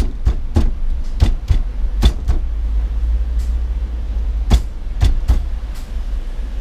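A series of sharp, irregular knocks and clicks over a steady low rumble. The knocks bunch together in the first couple of seconds and come again a few times past the middle.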